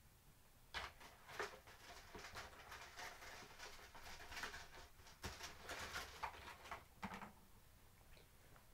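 Faint, irregular rustling with several sharp knocks and clicks, as of things being handled and rummaged through, from about a second in until about seven seconds in.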